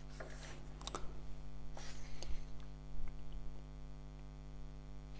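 Pages of a paperback comic book being turned by hand: several short paper rustles and flicks in the first three seconds, over a steady electrical hum.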